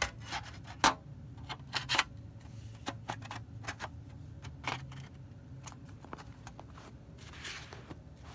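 Handling of a MacBook Pro's aluminium bottom case: a run of sharp clicks and taps, loudest about a second and two seconds in, then a soft rustle near the end as the laptop is turned over.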